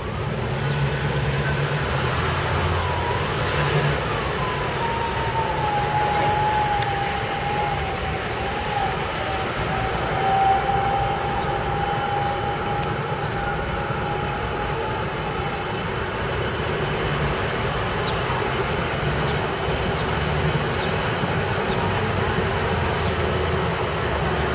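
A streetcar riding along its tracks, heard from on board: a steady rumble, with a whining tone that climbs and dips over the first few seconds, then holds level until about two-thirds through before fading.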